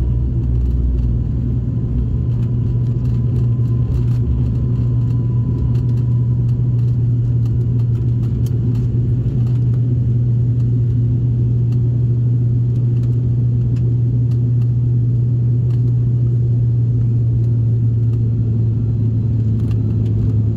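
Cabin noise of a high-wing turboprop airliner at take-off power: a loud, steady propeller and engine drone. A deeper runway rumble fades in the first couple of seconds as the aircraft lifts off.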